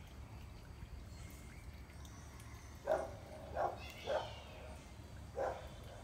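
A dog barking: four short barks starting about halfway in, three in quick succession and then one more a little over a second later.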